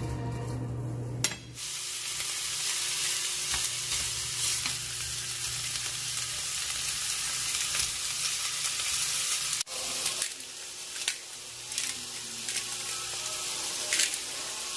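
Diced pork belly, potato, garlic and onion sizzling steadily as they fry in a pan, with tongs clicking against the pan as they are stirred. The sizzle starts after about a second and drops out briefly about two-thirds of the way through.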